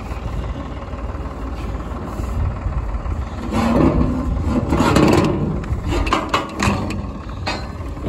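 A vehicle engine running steadily, with louder rattling and scraping from about three and a half seconds in, then a few sharp knocks.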